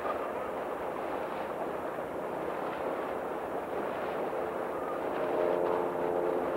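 Steady rushing of water and wind from a motor launch running alongside a rowing shell. A steady motor hum rises in about five seconds in.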